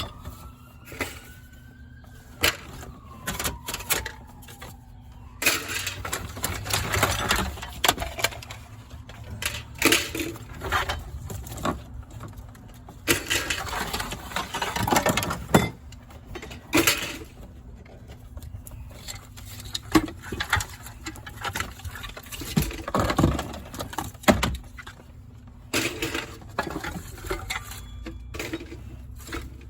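Junk being moved and cleared out of a stripped car's interior: irregular knocks, clatters and bursts of rustling and scraping, with short pauses between.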